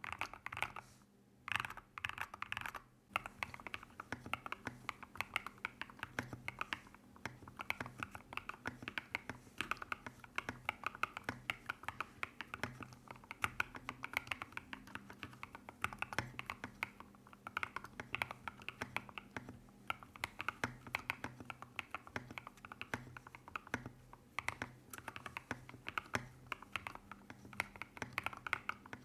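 Typing on a Royal Kludge RK100 mechanical keyboard with factory-lubed MMD Princess 48g switches and MOA-profile keycaps, heard as a steady, fast stream of key clacks. A few scattered keystrokes come first, and continuous typing starts about three seconds in.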